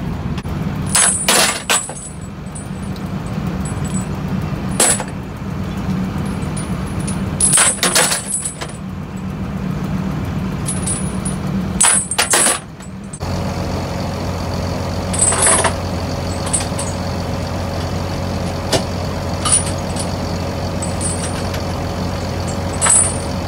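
Heavy steel flail-drum chains clinking and jangling now and then as they are handled, over a steady low machine hum.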